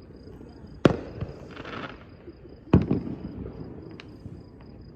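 Fireworks going off: two sharp bangs about two seconds apart, with a brief crackling hiss between them.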